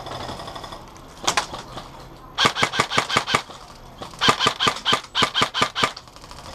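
Airsoft gun firing: a single shot about a second in, then two quick strings of shots, about seven a second, each shot with a short ringing ping.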